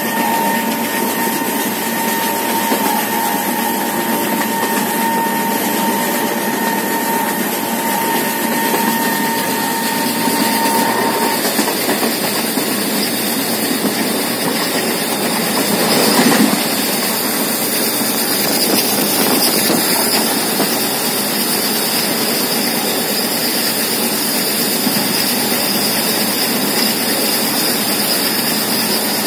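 Steady running noise of a passenger train heard from on board: wheels on the rails and rushing air, with a thin steady whine through the first ten seconds or so and a brief louder swell about halfway through.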